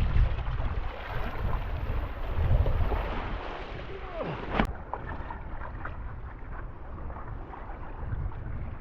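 Wind buffeting the microphone in gusts over a broad rush of water and air, heaviest in the first few seconds. A brief sliding squeak ends in a sharp click about four and a half seconds in.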